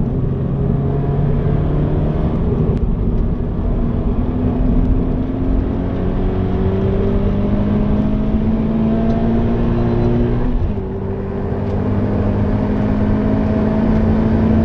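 Stock Toyota GT86's FA20 flat-four engine, heard from inside the cabin, accelerating with its pitch climbing steadily; about eleven seconds in the pitch drops at an upshift and then climbs again.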